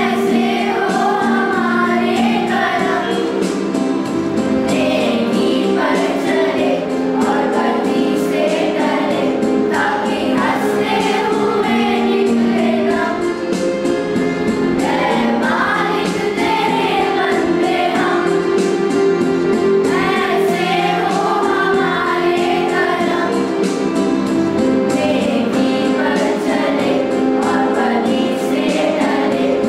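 A group of schoolgirls singing a Hindi song together in unison, as a small choir.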